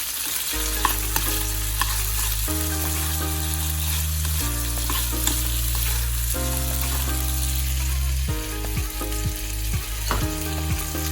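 Food sizzling and crackling as it fries in a pan, with background music changing chords about every two seconds underneath.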